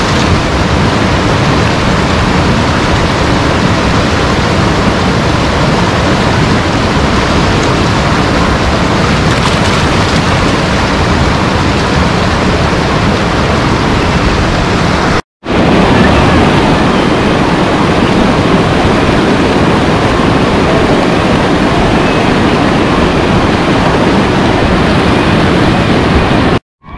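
Loud, steady rush of fast water churning over rocks. It breaks off for an instant about halfway through and comes straight back.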